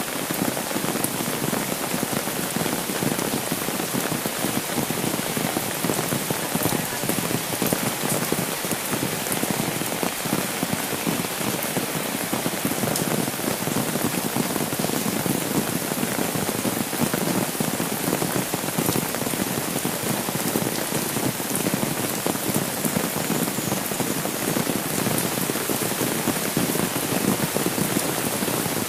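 Steady rain falling on an umbrella held overhead and on a wet paved road: an even hiss of rain with a dense spatter of individual drops close by.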